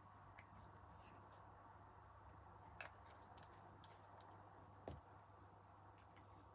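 Near silence: a low steady hum, with a few faint small clicks and taps from tweezers and a liquid glue bottle being handled over a craft mat. The two clearest clicks come about 3 and 5 seconds in.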